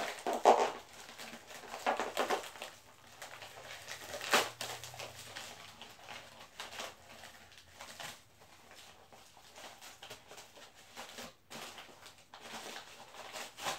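Packaging being handled and opened by hand: irregular crinkling and rustling, with sharper crackles about half a second, two seconds and four seconds in, then quieter handling.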